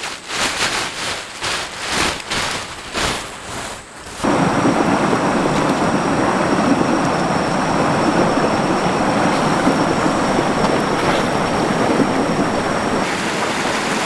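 Water splashing in a quick, irregular run of strokes. About four seconds in it switches suddenly to a steady, loud rush of flowing river water.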